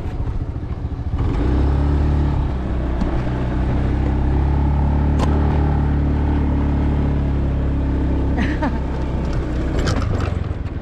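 Small motorbike engine running steadily under way; it picks up about a second in, holds an even pitch, and eases off near the end.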